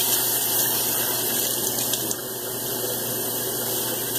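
Water running from a tap in a steady stream.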